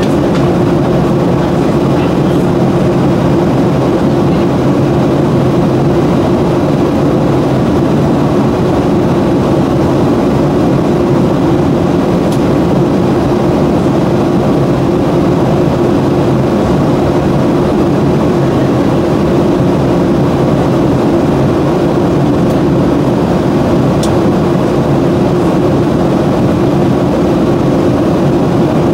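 Steady cabin noise of a Boeing 737 airliner in flight: a constant loud rush of engines and airflow, heaviest in the low range with a steady hum, unchanging throughout.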